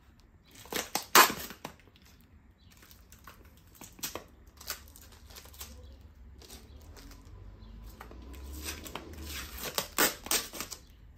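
A small blade cutting and scraping at the taped end cap of a cardboard mailing tube, with sharp crackling scrapes in bursts. The loudest cluster comes about a second in, a few single scrapes follow, and another cluster comes near the end as the end cap is worked loose.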